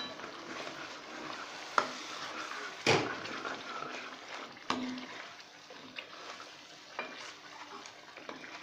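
Steel ladle stirring and scraping in a steel kadhai, with sharp metal-on-metal clinks, the loudest about three seconds in. The masala frying in oil sizzles as water from the rinsed mixer jar goes in and it thins to a bubbling gravy.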